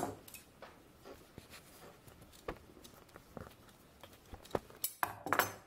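Scissors snipping a thin foam sheet into small pads, with soft handling rustles. A few scattered snips, and a louder cluster of them near the end.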